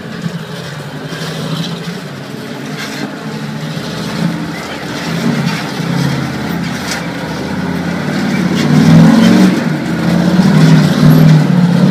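Rock-crawling off-road buggy's engine revving unevenly as it climbs over boulders. It gets much louder over the last few seconds as the buggy comes closer.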